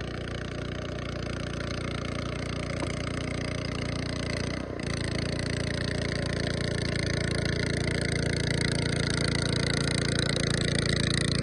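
A boat's engine running steadily, slowly growing louder, with a brief dip about four and a half seconds in.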